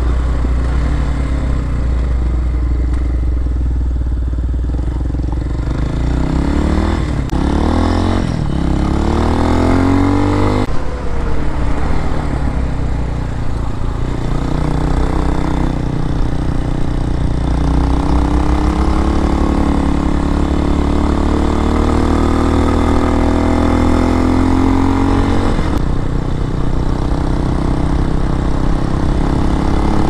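Single-cylinder engine of a 2023 RPS Hawk-X 250 dual-sport motorcycle running under way with wind noise. The engine pitch rises from about six seconds in and drops suddenly around ten seconds, then climbs slowly again through the middle. The bike is a new machine still in its break-in miles.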